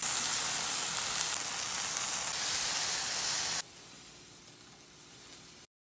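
Ice cream sandwich sizzling loudly in a hot cast-iron skillet, a steady hiss that cuts off suddenly about three and a half seconds in, leaving only faint room noise.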